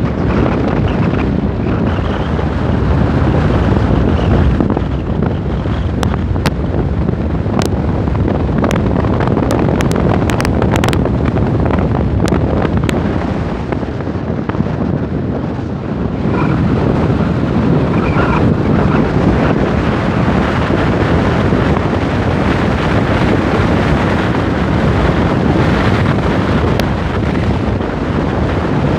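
Steady rush of wind over the microphone mixed with the car's road and engine noise while driving at speed, with a scatter of sharp crackles about six to eleven seconds in.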